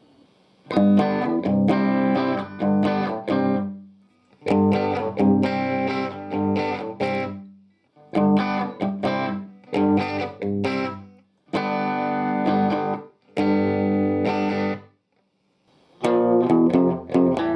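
Electric guitar played through a Marshall DSL40C tube amp into a Celestion speaker, in short strummed and picked phrases with brief pauses between them.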